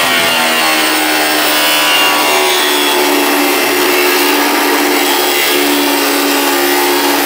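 Corded angle grinder with a cutting disc slicing through thin steel checker plate, running steadily at full speed: a loud, even whine over the rasp of the disc in the metal.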